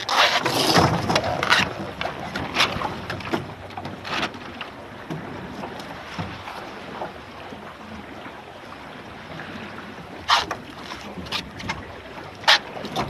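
Water rushing and splashing against the hull of a small sailing dinghy under way, with wind. There is a loud burst of splashing at the start, then several sharp slaps of water or knocks on the hull, the loudest near the end.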